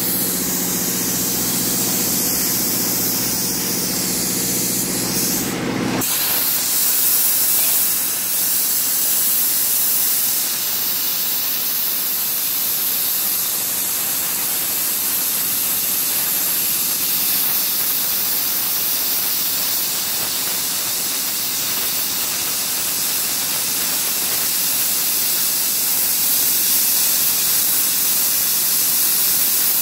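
CNC plasma torch cutting steel plate with a steady, loud hiss. For about the first six seconds a steady machine hum with several tones sits under the hiss, then stops abruptly.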